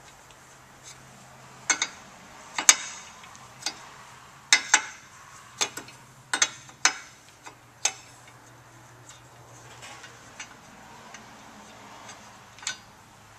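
Irregular sharp metal clicks from an open-end wrench knocking on an EFI temperature sender and the intake manifold as the sender is loosened and unscrewed. A faint steady low hum runs behind.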